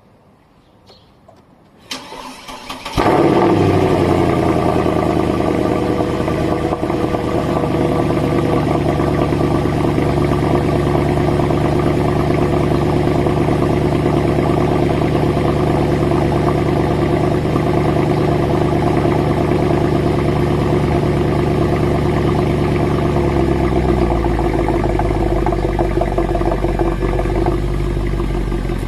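Stock Mercedes-Benz C63 AMG's 6.2-litre V8 starting from cold: about two seconds of starter cranking, then it catches with a burst of revs and settles to a fast, steady cold idle. About 23 seconds in, the idle drops to a lower speed.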